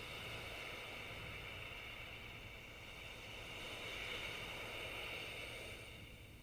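Ocean waves washing in, a steady hiss of surf that swells about four seconds in and eases off near the end.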